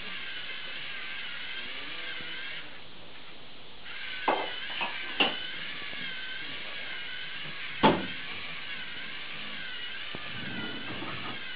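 Lego Mindstorms NXT servo motors whining as the crawler drives and its ultrasonic sensor motor sweeps back and forth. The pitch wavers up and down with each sweep, and the whine stops briefly about three seconds in. A few sharp clicks sound between four and eight seconds in, the loudest about eight seconds in.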